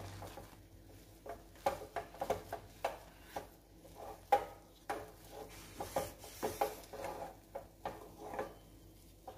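Spatula stirring and scraping a thick rice-flour dough around a stainless steel pan, in irregular knocks and scrapes against the metal as the dough is cooked until it thickens.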